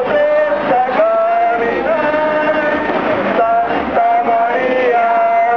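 Singing of a slow hymn: a voice holding long notes that step up and down, with music behind it.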